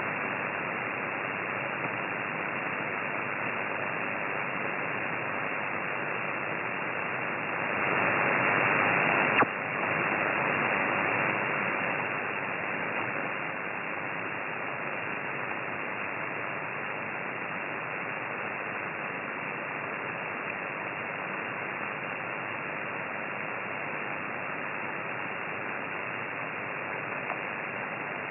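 Steady hiss of static from a ham radio receiver tuned to the 6-metre (50 MHz) band, heard through its narrow voice filter: a raised noise floor from interference. The hiss swells louder about eight seconds in, with a sharp click shortly after, then eases back to a steady level.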